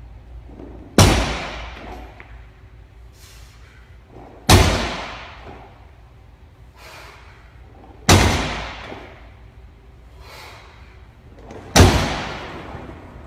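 A loaded barbell's bumper plates coming down onto a wooden lifting platform at the bottom of each deadlift rep: four heavy thuds about three and a half seconds apart, each trailing off over about a second.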